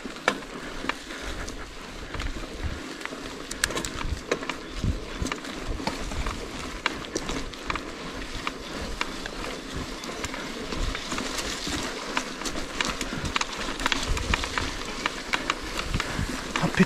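Rockrider AM 100S mountain bike rattling and clicking over rough ground, under a steady rustle of tyres on the trail, with wind buffeting the microphone.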